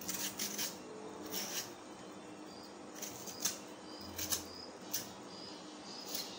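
Kitchen knife shaving the skin off a large cucumber: about ten short scraping strokes at irregular intervals.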